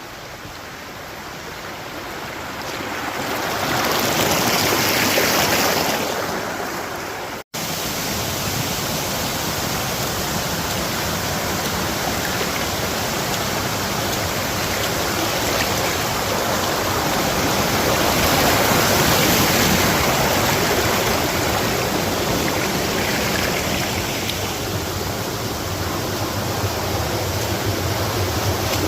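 Waterfall: water spilling over rock ledges into a stream, making a steady rushing noise that grows louder over the first few seconds. It cuts out for an instant about seven seconds in, then carries on unchanged.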